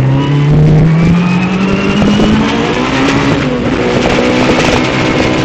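Toyota Corolla RXi rally car's engine pulling hard under acceleration, heard from inside the cabin. Its pitch climbs over the first two seconds or so, then holds high, with loud road and cabin noise throughout.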